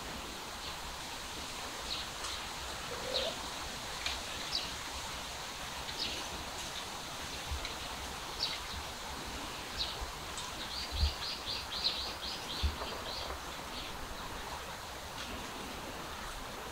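Birds chirping: scattered short, high chirps, with a quick run of about ten chirps about two-thirds of the way through, over a steady outdoor hiss and a few soft low thumps.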